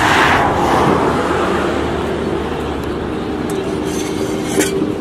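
Road traffic: a vehicle passes close by near the start, its noise swelling and fading over about a second, then a steadier engine hum carries on, with one short click near the end.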